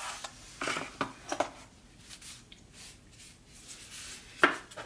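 Spare keyboard keycaps and their packaging handled by hand: scattered light rustling and small plastic clicks, with a sharper click near the end.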